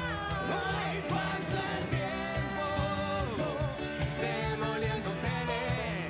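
Live band music: a woman singing lead, with sliding, held notes, over a steady beat on a cajón and piano accompaniment.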